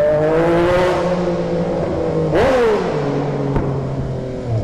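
Yamaha MT-09's three-cylinder engine running under way, its pitch drifting gently, with a quick throttle blip a little over two seconds in where the pitch jumps up and falls back.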